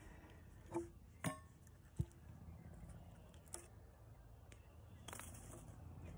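About five light, sharp knocks and clacks of a claw hammer and loose walnut blocks as chainsaw-cut chunks are broken out of a log and lifted out by hand; the loudest knock comes about two seconds in.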